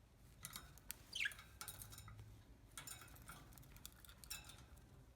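Pet budgerigar giving one short chirp that glides downward about a second in, among several brief bursts of faint clicking and scratchy chatter.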